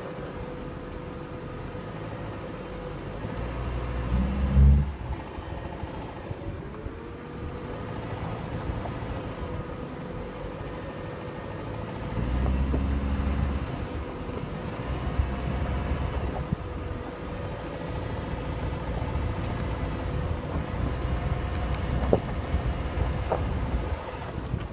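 2000 Dodge Neon's four-cylinder engine running as the lifted car drives over a rough dirt trail, getting louder for a few seconds at a time under load. There is a loud thump about four and a half seconds in.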